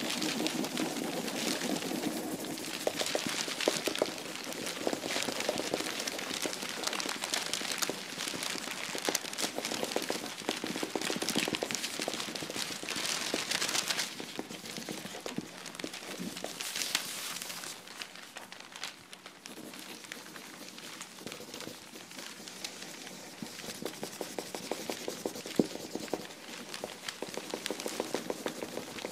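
Dense crackling, scratchy noise made of many small clicks, with a quieter stretch a little past the middle.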